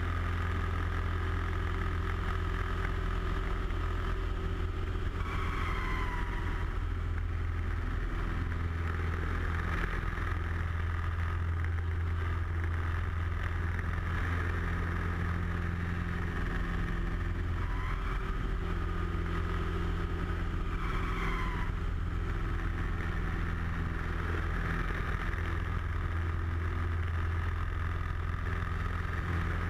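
Light aerobatic plane's piston engine and propeller droning steadily, heard from inside the cockpit, with a few brief higher whines sliding in pitch.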